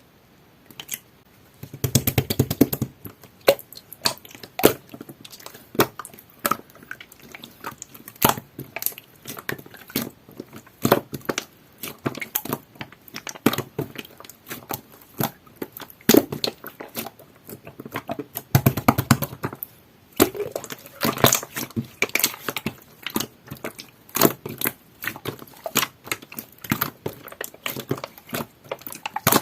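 Jelly-textured slime being squished and stretched by hand, giving a steady run of sticky clicks and pops. There are two denser bouts of squelching, about two seconds in and again about two-thirds of the way through.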